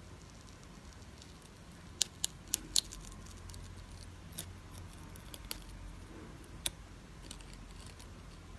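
Dried green tea peel-off mask being peeled slowly off the skin of a nose: sharp crackles and ticks as it pulls free, a quick run of four about two seconds in, then single ones, over a low steady hum.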